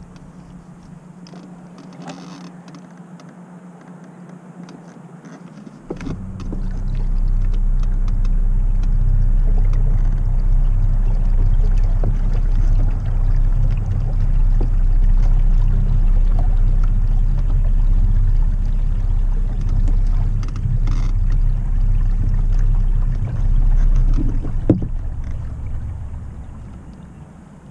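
Small boat under way on its electric trolling motor: a low steady rumble of motor and water that starts abruptly about six seconds in, holds, then fades away near the end, with a single knock just before the fade.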